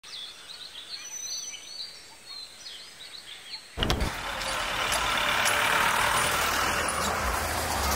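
Birds chirping over quiet ambience; about four seconds in, loud street traffic noise with a car engine rumbling cuts in abruptly.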